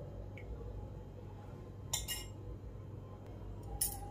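Two light clinks of glass dishes being handled and set down, one about two seconds in and one near the end, over a faint steady low hum.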